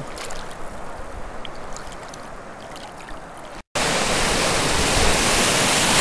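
A steady wash of sea water, then, after an abrupt cut about three and a half seconds in, louder ocean surf breaking and foaming, with wind buffeting the microphone.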